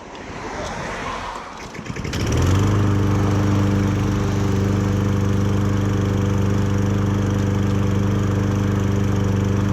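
Toro walk-behind lawn mower's small engine running while mowing grass: it grows louder over the first two seconds, then settles into a loud, steady hum from about two seconds in.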